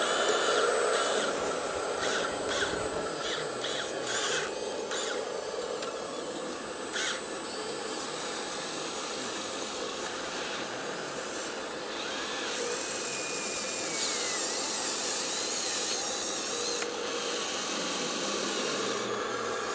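Small electric motors of radio-controlled scale model construction machines whirring and whining as an excavator works its arm and bucket and a tipper truck moves in behind it. A thin high whine runs through the first half with a few clicks, and a louder whirring sets in about two-thirds of the way through.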